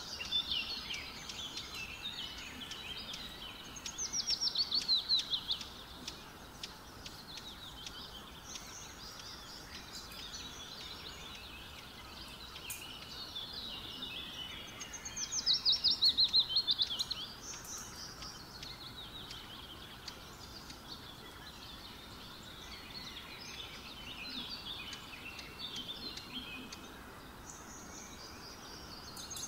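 Birds chirping steadily, with a louder call of a quick series of falling notes about four seconds in, again around the middle, and starting again at the very end.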